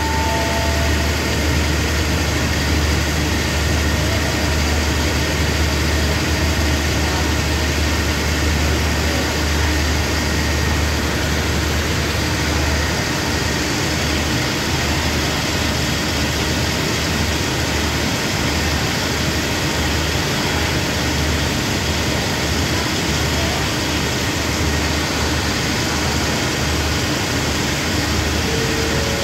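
Diesel engines of a standing passenger train idling: a steady, loud low hum that grows unsteady about halfway through.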